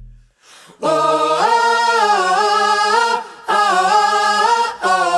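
Music: a song opening with unaccompanied sung vocals, held notes stepping up and down in pitch, broken by two short pauses.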